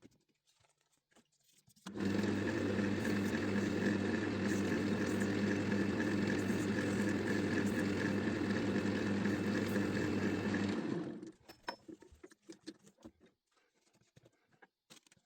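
Wood lathe's electric motor starting abruptly and running at a steady speed for about nine seconds, then shut off and winding down, with a few light clicks and knocks afterwards.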